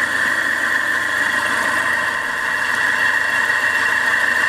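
Subaru EJ25 2.5-litre flat-four engine idling steadily, with a steady high whine over it, while running on a dead alternator that is not charging.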